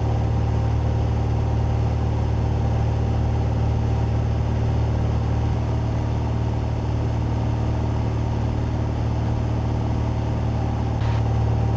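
Engine and propeller of a 1956 Cessna 172 droning steadily in cruise flight, heard from inside the cabin. The drone holds an even pitch and level throughout.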